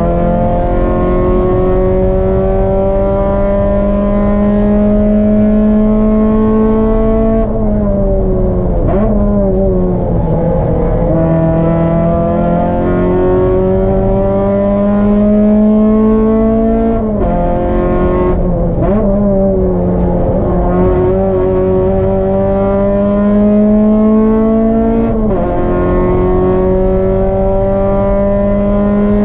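Race car engine pulling hard at high revs, its pitch climbing slowly through long stretches. It drops and blips through braking and downshifts about a quarter of the way in and again past the halfway point, then drops once more near the end before pulling again.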